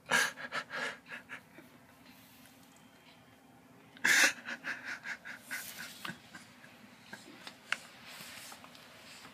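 A man crying: a bout of quick gasping sobs at the start, then a louder bout about four seconds in that trails off into ragged breathing.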